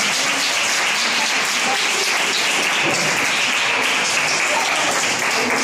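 A roomful of schoolchildren applauding, a steady, dense clapping that keeps going without a break.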